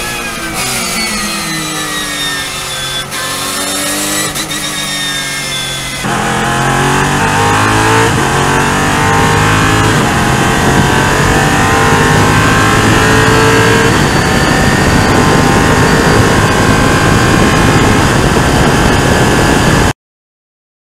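A prototype race car's engine heard from onboard at speed. For the first six seconds its note falls and rises through the gears. After a sudden change it pulls up through the revs and runs hard and steady, then stops abruptly near the end.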